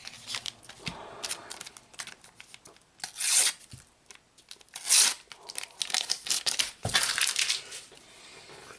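A foil sticker packet being torn open and crinkled by hand. There is scattered crackling throughout, with three louder rips about three, five and seven seconds in.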